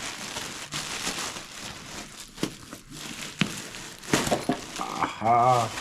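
Plastic packaging crinkling and rustling as a backpack is unwrapped, with scattered sharp crackles. A short wavering voice sound comes near the end.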